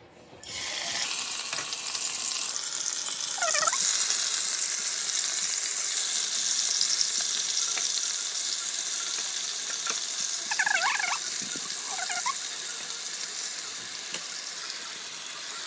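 Marinated chicken deep-frying in hot oil in a pan, with a loud, even sizzle that starts suddenly as the pieces go in and slowly eases off.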